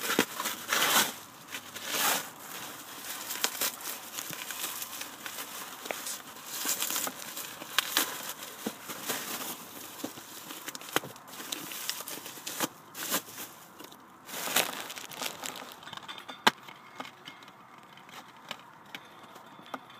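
Bubble wrap and plastic packaging crinkling and rustling in irregular bursts as items are pulled out of a packed shipping box. It goes quieter in the last few seconds, with a single sharp click near the end.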